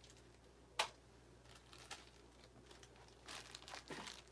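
A small plastic zip bag crinkling as it is handled, with one sharp crackle just under a second in and a short run of crinkles near the end.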